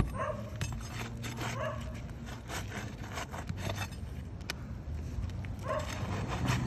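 A metal pry bar clicking and scraping against asphalt shingles as they are worked loose to find the nails, with a few short calls, one near the start, one about a second and a half in and one near the end, over a low steady hum.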